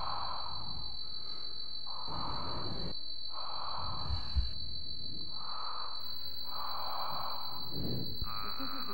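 A person breathing in and out, about five breaths roughly a second and a half apart, with a brief low thump about four seconds in. A steady high-pitched whine runs underneath.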